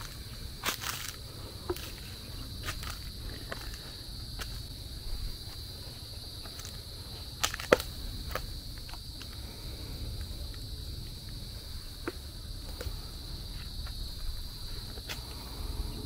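A steady, high-pitched chorus of insects, with scattered crunching footsteps on the trail and one sharper click about eight seconds in.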